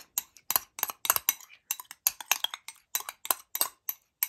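Teaspoon stirring aloe vera gel and honey in a small glass bowl, clinking and scraping against the glass in quick, uneven clicks, about four or five a second.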